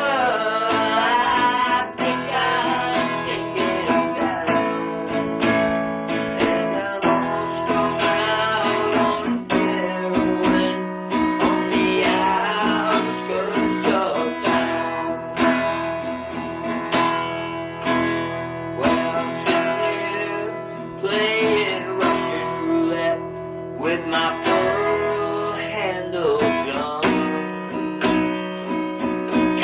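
Background music: an acoustic-guitar-led song playing an instrumental passage, with a gliding lead line over strummed guitar and no sung words.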